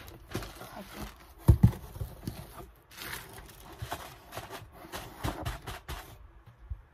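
Cardboard shipping box being handled on a desk: its flaps pushed open and the box shifted, with scraping and rustling and two heavy thumps about a second and a half in.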